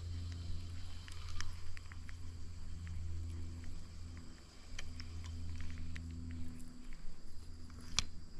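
Outdoor creekside ambience: insects buzzing steadily under a constant low rumble, with scattered small clicks and one sharper click near the end.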